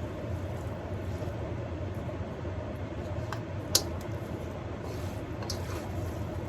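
Steady low background hum with a few light clicks, one sharper click a little past halfway.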